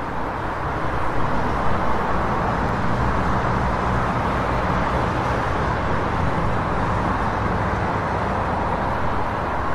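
Steady, loud rushing noise with a low rumble underneath, cutting in abruptly at the start and holding even throughout.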